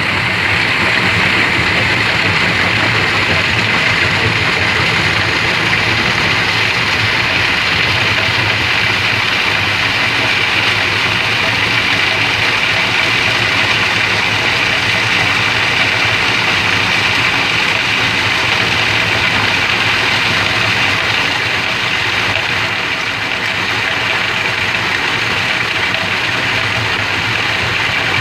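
Engine-driven sand-grinding machine running steadily at a constant load, a continuous machine drone with a hiss on top.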